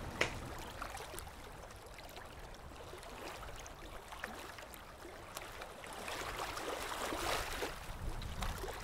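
Faint water sound effect: gentle lapping and splashing, growing a little louder in the last few seconds.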